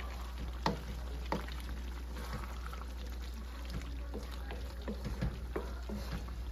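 Wooden spatula stirring a thick, saucy pork stew in a wok, with a few light knocks of the spatula against the pan over the soft wet sound of the simmering sauce.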